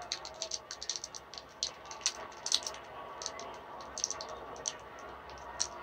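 Faint, irregular small clicks and ticks, several a second.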